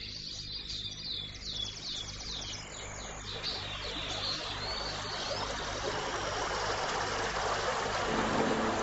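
Small birds chirping rapidly in high, quick, falling notes for the first few seconds, under low background music. A rushing noise then swells and grows louder, and held music notes come in near the end.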